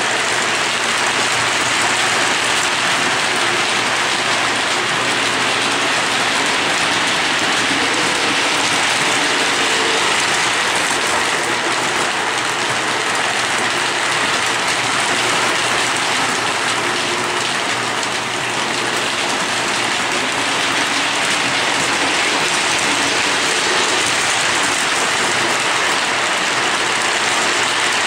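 Lionel O27 model trains running on three-rail tubular track: a steady rushing clatter of metal wheels on the rails, with a faint low steady hum underneath.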